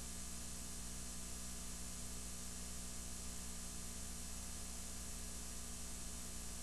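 Steady hiss with a low electrical hum from a videotape transfer where the tape holds no recorded sound.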